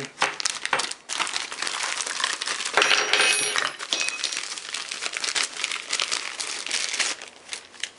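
Clear plastic bag crinkling and rustling as it is opened and rummaged through, loudest about three seconds in and dying down near the end.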